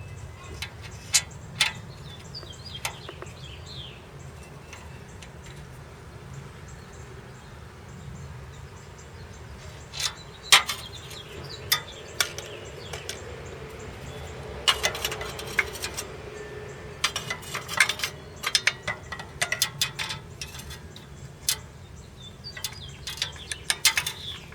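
Metal clinking and clattering: scattered sharp taps of metal tools and parts being handled during work on an exhaust bracket and clamp. The taps grow busier around the middle and again near the end.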